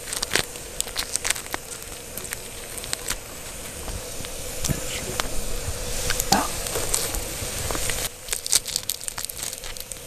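Campfire embers crackling, mixed with the clicks and crunches of metal tongs pulling the shell off a fire-grilled shrimp.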